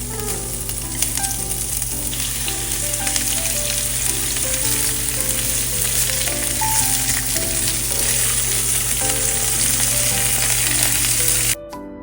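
Food frying in a hot pan, with a steady dense sizzle. The sizzle cuts off suddenly near the end, leaving only soft background music.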